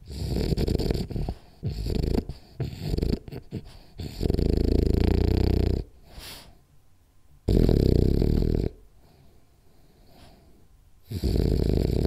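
French bulldog snoring in its sleep: short, broken snorts for the first few seconds, then three long, loud snores about three seconds apart, the last near the end.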